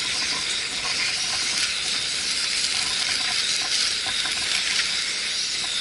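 Camp stove burner hissing steadily under a pot of water being brought to the boil.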